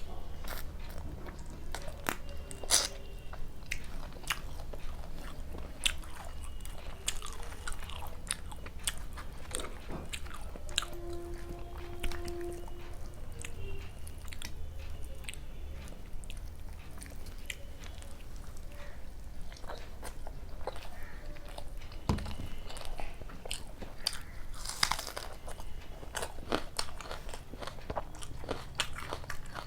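A person chewing and biting food with wet mouth sounds and frequent sharp crunches: luchi with chicken kosha and raw onion being eaten. A brief steady hum sounds about eleven seconds in.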